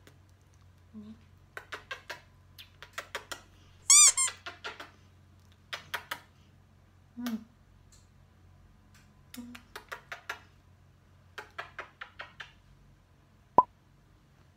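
Quick runs of smacking kisses on a dog, three to five at a time, with one much louder squeaky kiss about four seconds in and a single sharp click near the end.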